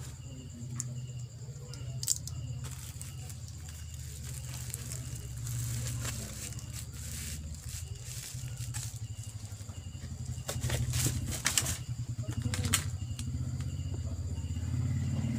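Plastic bubble wrap rustling and crinkling as it is handled, with scattered sharp crackles, the busiest stretch a little past the middle. A steady low hum runs underneath.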